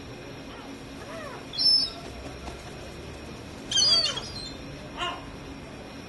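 Yellow-legged gulls calling on a rooftop: a few soft calls that rise and fall in pitch, and two louder, high-pitched calls about one and a half and four seconds in, with a shorter call just after five seconds.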